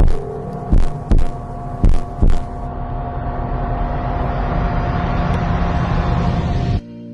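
Ominous sound design from a fake emergency-alert video: a steady electronic drone with paired thumps like a heartbeat, about one beat a second, fading out after a couple of seconds. A rumbling swell then rises steadily and cuts off suddenly near the end, leaving a lower drone.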